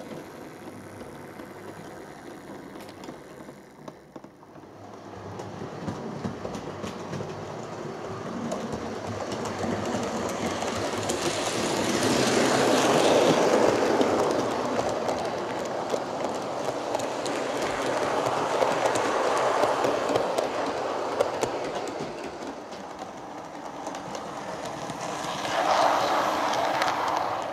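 Model trains running on a layout's track, the wheels and motors making a steady rattling run. It grows louder as a rake of coaches passes close about twelve seconds in, and again near the end as a model BR Class 35 diesel passes close.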